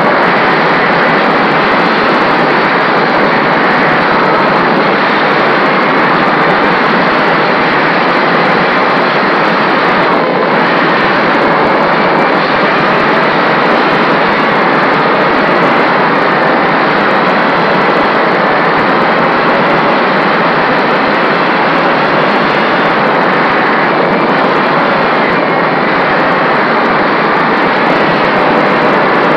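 Onboard sound of an FPV racing mini quadcopter in flight: four Emax RS2205 2300kv brushless motors spinning 5040 propellers. It is a loud, steady whir with slight wavers in pitch as the throttle changes.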